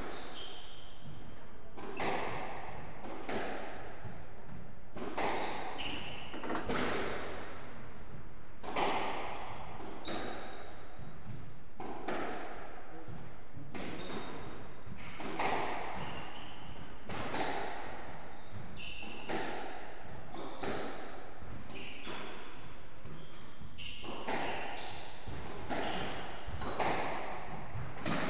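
A squash rally: the ball struck by rackets and smacking off the court walls about once a second, each hit echoing around the court. Short high squeaks of shoes on the wooden floor come between the shots.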